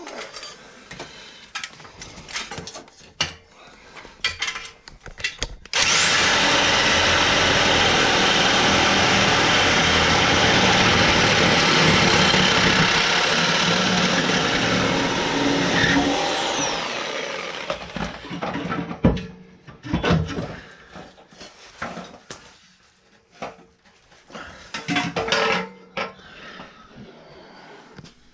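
Power cutting tool slicing through the old exhaust pipe for about eleven seconds, a loud grinding noise with a steady high whine that winds down near the end when the tool is released. Scattered metallic knocks come before and after it.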